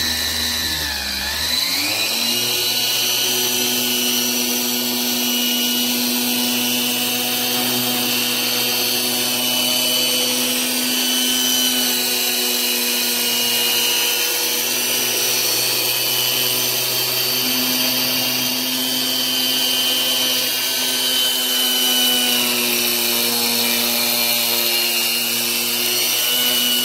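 Small corded electric sander running at a steady medium speed while wet-sanding a plastic headlight lens. Its motor whine dips briefly about a second in, then holds steady.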